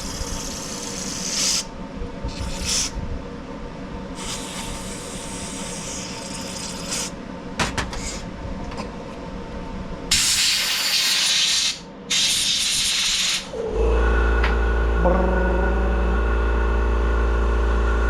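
Compressed air blown through carburetor passages from an air nozzle in several hissing bursts, some short and some a few seconds long. About fourteen seconds in, a motor starts and runs with a steady loud hum.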